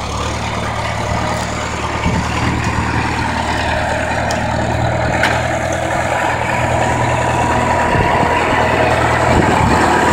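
Old red farm tractor's engine running steadily as it drives over soft, muddy ground, getting louder as it comes closer.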